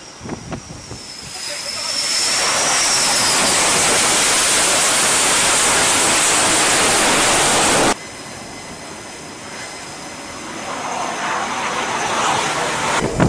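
F/A-18 fighter's twin jet engines growing to a loud, steady blast as the jet comes aboard the carrier deck, with a high whine early on that slides and fades. The sound cuts off sharply about eight seconds in, leaving a fainter steady rush.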